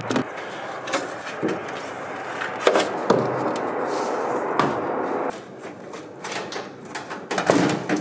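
Scattered knocks and clunks as parts are lifted and set down on the stripped floor and seat box of a 1970s Land Rover Series 3. They sit over a steady background noise that drops away about five seconds in.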